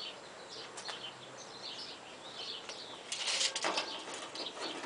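Small birds chirping over and over. About three seconds in there is a short scraping rattle as a tape measure is worked along the aluminum sheet.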